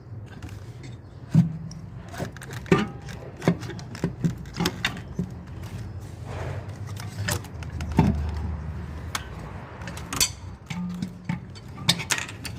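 Metal hand tools and engine parts clinking and knocking irregularly, over a steady low hum, during removal of the intake manifold from a Lexus V8.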